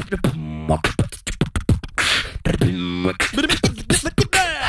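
Beatboxing: a person making drum sounds with the mouth, with quick sharp clicks and thumps between held hummed or sung tones that slide in pitch.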